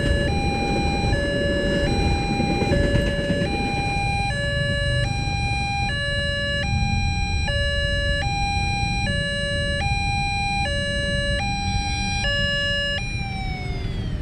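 Railway level-crossing siren from a single TOA horn loudspeaker, alternating between a lower and a higher tone about every 0.8 s. Near the end it is switched off and the pitch sags downward as it dies away, the hoarse-sounding shutdown this crossing is known for. Underneath is the low rumble of the passing train, fading in the first few seconds, then road traffic.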